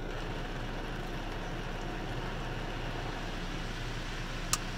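Kondor touchless car wash spraying water over a minivan, heard from inside the cabin as a steady hiss over a low hum. A single sharp click comes near the end.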